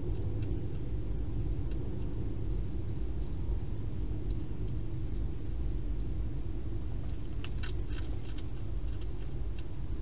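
Steady low rumble with scattered faint clicks and crunches, clustered about seven to eight and a half seconds in, from a hedgehog eating inside a plastic feeding station.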